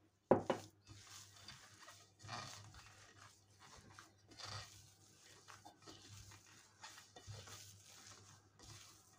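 A hand kneading crumbly oat cookie dough in a glass bowl: irregular squishing, rustling strokes about once a second, with a sharp knock just after the start.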